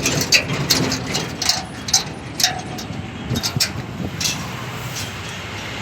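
Vehicle engine running steadily while riding in it, with scattered light clicks and rattles.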